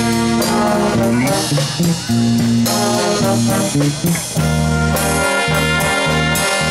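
Brass band playing live: trombones and trumpets over tuba, electric bass guitar and drum kit, in a jazzy swing style.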